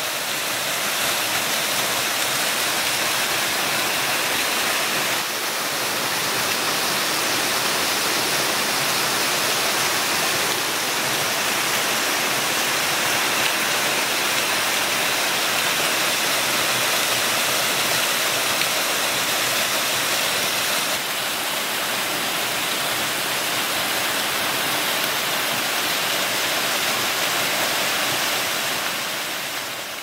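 Small waterfall pouring down a rock face into its plunge pool: a steady, even rush of falling and splashing water, its tone shifting slightly a few times.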